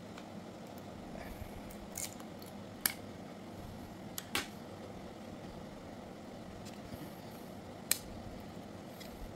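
Small parts of a TPOB Troll hair clipper being handled while it is taken apart: scattered sharp clicks and taps, four of them standing out, over a faint steady hiss.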